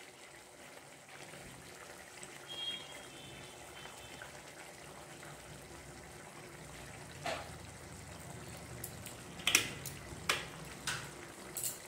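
Raw mustard oil poured in a thin trickle from a plastic bottle into curry simmering in a kadai, over a steady low hiss of the pan. A few sharp clicks come in the second half.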